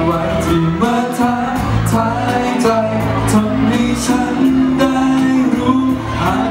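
A man singing a pop ballad into a handheld microphone, with instrumental accompaniment played over a PA.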